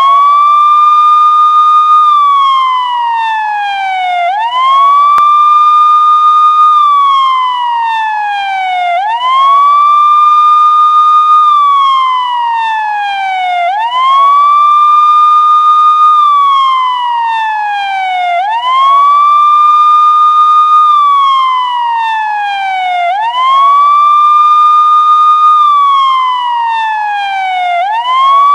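Police siren on a slow wail. Each cycle rises quickly, holds its high pitch for a second or two, then falls slowly before rising again, about every four and a half seconds.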